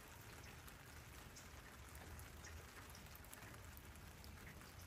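Faint, steady rainfall, with individual drops ticking here and there over an even hiss.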